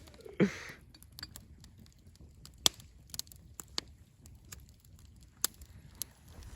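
Campfire crackling: sparse sharp pops and snaps, about one or two a second, over a faint low rumble.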